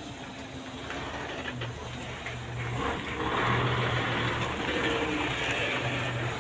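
A truck engine running steadily, with vehicle noise growing louder from about three seconds in.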